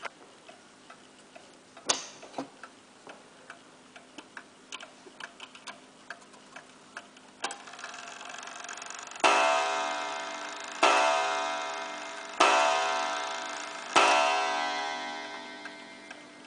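1874 Waterbury eight-day gingerbread kitchen clock: light ticking and clicks from the movement and hands, then four strikes on its coiled wire gong about a second and a half apart, each ringing and fading. The clock strikes as its minute hand is turned past the hour while the time is being set.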